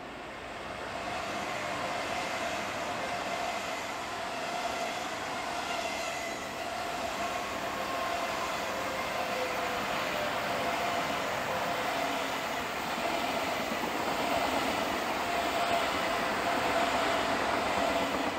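ETR 610 electric tilting train passing, a steady rush of wheels on rail with a faint steady whine running through it, growing slightly louder toward the end.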